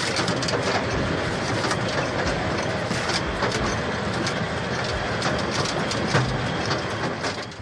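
Firewood processing machine with rotating circular saw blades running as logs are fed in, cut and split: a steady mechanical clatter with many sharp knocks of wood.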